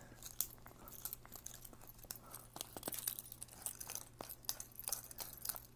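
Faint, irregular clicks and scrapes of the Olymbros underwater fishing camera's plastic screw-together housing being twisted apart by hand.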